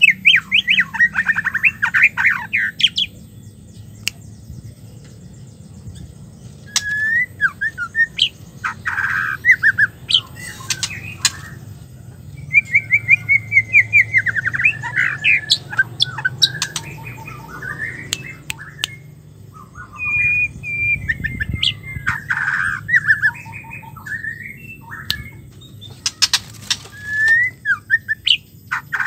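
Female white-rumped shama calling in several bouts of rapid rattling chirps and short whistled notes, with pauses between the bouts and a few sharp clicks.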